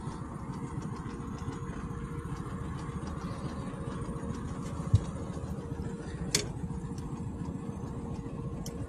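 Boat motor idling steadily, with a short thump about five seconds in and a sharp click a second or so later.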